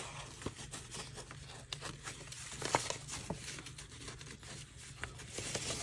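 Faint rustling and sliding of folded paper, with small scattered ticks and crinkles, as the pieces of an accordion-folded paper mini journal are fitted back together by hand.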